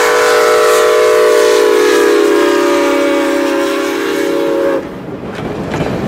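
Norfolk & Western 4-8-0 #475's chime steam whistle blowing one long chord of several notes, cutting off sharply about five seconds in. The passenger coaches then roll by with their wheels clicking over the rail joints.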